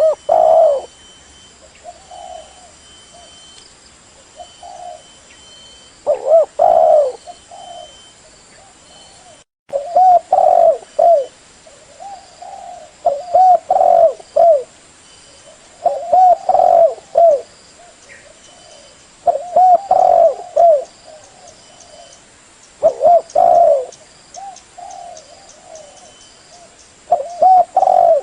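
Spotted dove cooing: phrases of several low coos repeated every three to four seconds.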